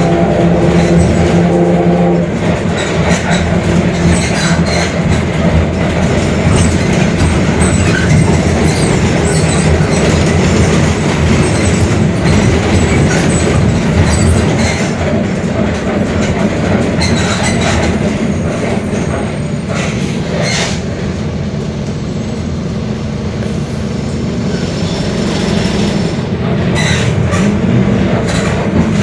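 Ride noise of a Mercedes-Benz OF-1721 Bluetec 5 diesel city bus under way: engine and drivetrain running with road rumble. A steady tone stops about two seconds in, and body rattles and knocks come through a few times.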